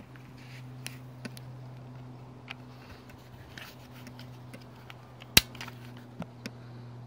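Umarex XBG CO2 BB pistol firing once, a single sharp crack about five seconds in, with a few faint clicks before and after it and a steady low hum underneath.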